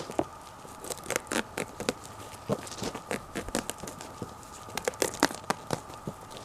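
Package wrapping being torn and crumpled by hand, with irregular crinkling and tearing.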